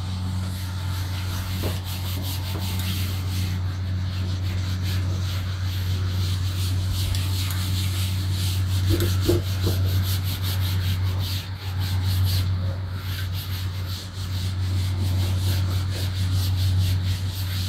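Cloth duster rubbed back and forth across a chalkboard, wiping it clean: continuous scrubbing made of many quick strokes. A steady low hum runs underneath.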